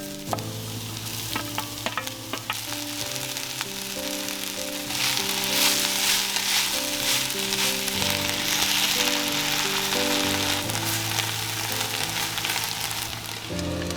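Food sizzling as it fries in a hot pan, growing louder and fuller about five seconds in, with a few sharp clicks before that. Soft background music plays underneath.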